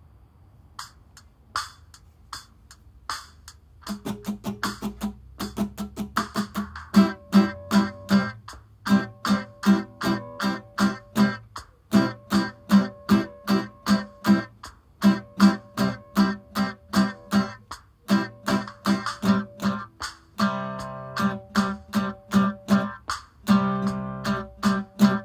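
Steel-string acoustic guitar strummed in a syncopated rhythm. Four evenly spaced clicks come first. Then from about four seconds in there are short, muted percussive strums, and after that ringing chords that are cut off by the strumming hand at each rest.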